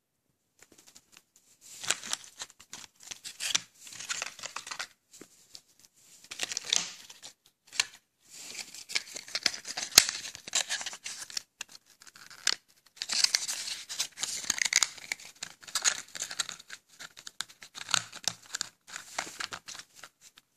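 Cardboard boxes and paper packaging of stink bombs being handled and opened, with irregular rustling and crinkling, tearing sounds and scattered small clicks, and one sharp click about halfway through.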